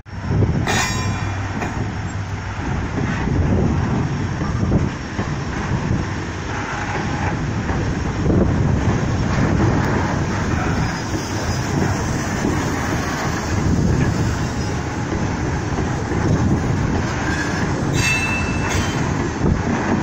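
Freight train wagons rolling on the rails with a steady rumble and occasional clanks, and a brief wheel squeal near the end.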